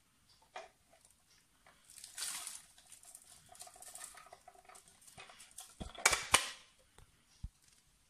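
A robot vacuum's plastic dust bin being emptied into a trash can, debris rustling and rattling out, then two sharp knocks about six seconds in, the loudest sounds, with a few lighter clicks of the plastic bin being handled.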